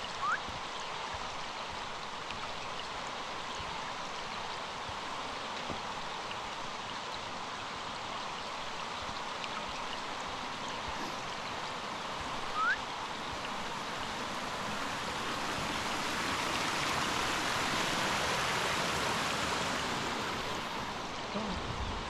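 Shallow forest stream running over rocks and a small cascade, a steady rushing and babbling of water that swells louder for several seconds past the middle before easing off near the end.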